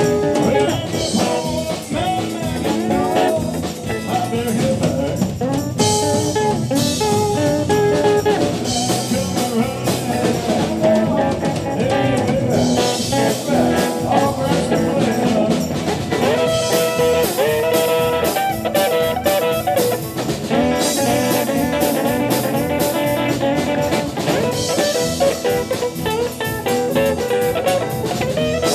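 Live rockabilly band playing: electric guitars, electric bass and drum kit at a driving, steady beat.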